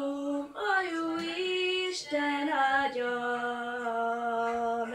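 Young boy singing a Hungarian song unaccompanied, drawing out long sustained vowels between words; near the end he settles on a lower note and holds it steady for about two seconds.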